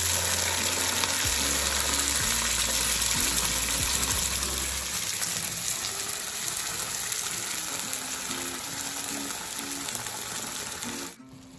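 Ground onion-ginger paste frying in hot oil in a pan, with a steady sizzle that cuts off suddenly near the end. Background music plays underneath.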